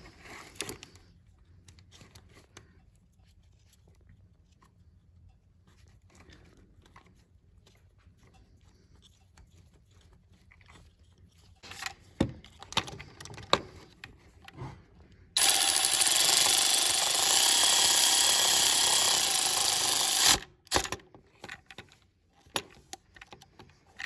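Scattered clicks and metal knocks of parts being handled, then a power tool running steadily for about five seconds, driving in the bolt that holds the new cam actuator solenoid. It starts and stops abruptly.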